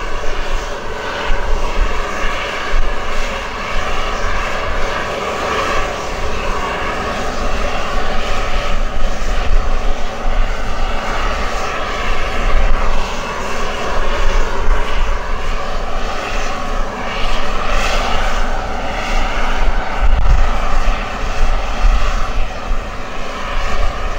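Fixed-wing aircraft engines running loud and steady, with tones that waver slowly up and down.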